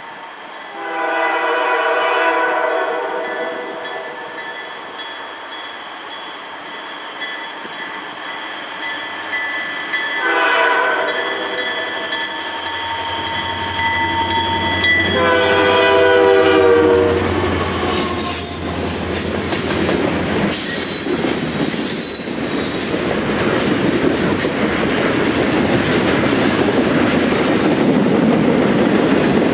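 Freight train led by Canadian Pacific and Soo Line EMD diesel locomotives approaching and passing. The horn sounds a long blast, a short one about ten seconds in, and another long one about fifteen seconds in, while the engines' low drone comes up. Then the cars roll by with steady wheel noise, rail-joint clicks and some high wheel squeal.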